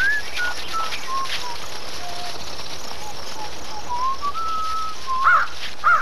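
A person whistling a slow tune in single held notes that step up and down, with a few quick rising-and-falling chirps near the end.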